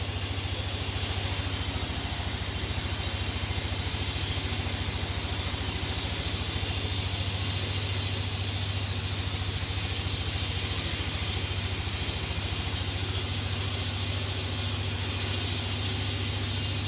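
Steady low hum of running machinery with a constant hiss above it, unchanging throughout.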